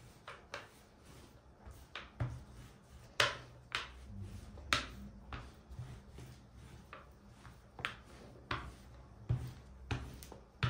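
Rolling pin worked back and forth over a sheet of floured dough on a hard worktop. A low rolling rumble runs under irregular light clicks and knocks, about one every half second to a second.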